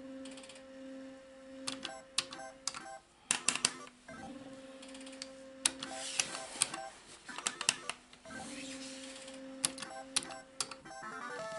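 Solex 2 pachislot machine being played through about three games. It holds a steady electronic tone while the reels spin, with sharp clicks of the stop buttons in quick sets of three and more clicks from betting and the lever between spins. A short electronic beeping tune starts near the end.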